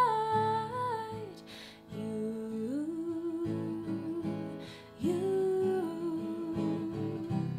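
Solo woman singing with acoustic guitar: a sung note held to its end, a breath, then two long held notes without clear words over strummed guitar chords.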